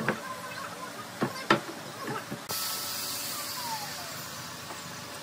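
Pine beams knocking against each other and the wooden worktable as they are moved and set down, several knocks in the first two and a half seconds, the loudest about a second and a half in. After that a steady high hiss.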